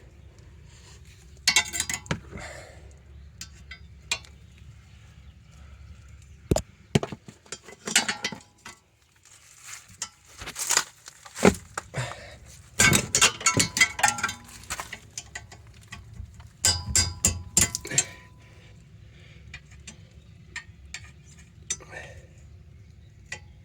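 A ratchet wrench clicking in short rapid runs and metal tools clinking while the 12 mm brake caliper bolts are worked loose.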